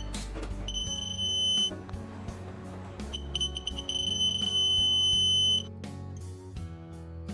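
High electronic beeping, most likely from a digital torque wrench signalling that the bus-bar nuts have reached the set 7 N·m torque: a one-second beep, then a few quick pips running into a long steady beep of about two and a half seconds, over background music.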